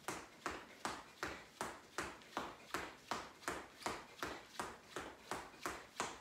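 Trainers striking a tiled floor while running in place with high knees: a steady beat of footfalls, nearly three a second.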